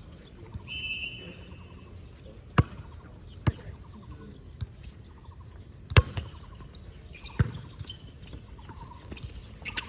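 A ball being struck or bouncing hard on an indoor court, about six sharp irregular hits, with sneakers squeaking on the floor between them.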